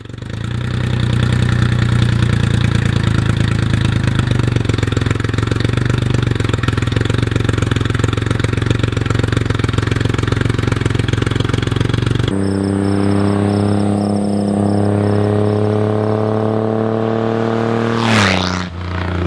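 Triumph Rocket III's 2.3-litre inline-three engine running steadily with the bike standing still. After a cut about twelve seconds in, the engine note climbs steadily as the bike accelerates, then drops sharply as it rides past near the end.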